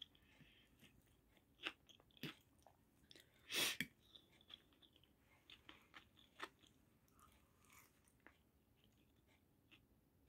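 Quiet eating sounds: chewing of boiled potato with scattered light clicks of a fork on a plate, and one louder, brief noise about three and a half seconds in.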